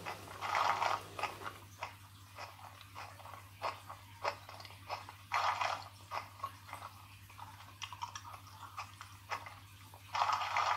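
The engine driver's snack sound effect from a Trix H0 V140 model locomotive's sound decoder: biting and chewing, with louder crunchy bites about half a second in, around five and a half seconds in and near the end, over a steady low hum.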